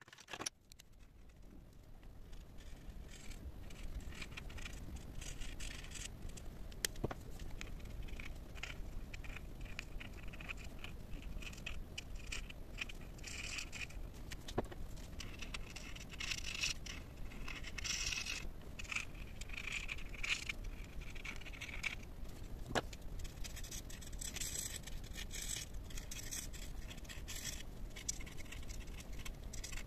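Felt-tip marker scratching across paper in short, uneven strokes as it colours in, with a single sharp click now and then.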